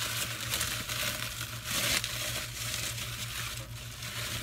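Plastic bubble wrap crinkling and rustling as it is handled and pulled away from a package, with many small crackles.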